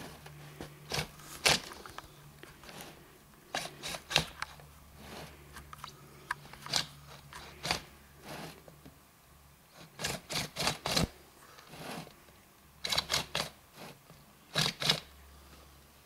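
Irregular clicks, knocks and scrapes, some in quick clusters, as objects are handled on top of a metal barrel stove, over a faint steady low hum.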